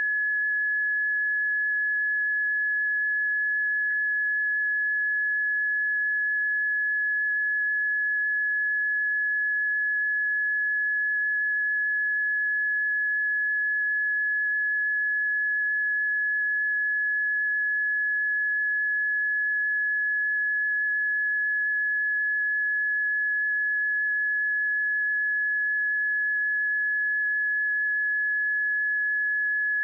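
Early-warning alert tone of a seismic and volcano monitoring stream: one steady, high tone held at a single unchanging pitch. The unchanged tone signals that no earthquake or eruption is being detected.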